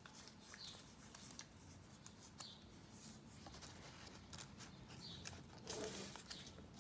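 Near silence with faint scattered clicks and soft rustles of a folded paper boat being handled.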